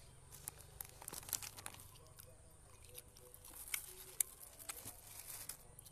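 Thin plastic food bag crinkling in faint, irregular crackles as hands work food out of it.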